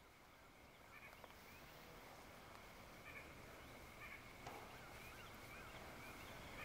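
Faint outdoor dusk ambience: a steady high tone, with a short run of quick repeated bird calls about four and a half seconds in.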